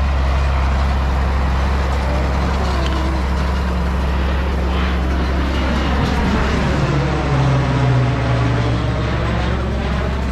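Tractor engine running steadily while pulling a hay rake through the field, a constant low drone.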